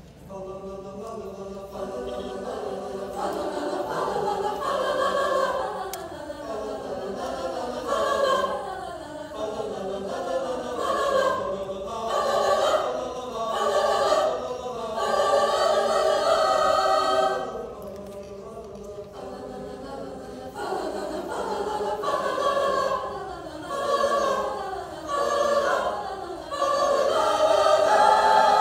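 Choir singing a slow piece in held chords, the phrases swelling and easing off, with a softer passage a little past the middle.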